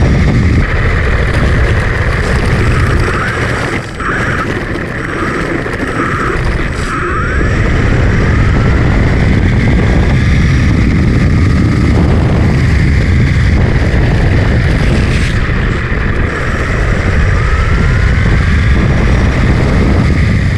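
A 3D-printed RC car's electric motor and gears driving, with a whine that rises and falls as it speeds up and slows down, over a heavy low rumble.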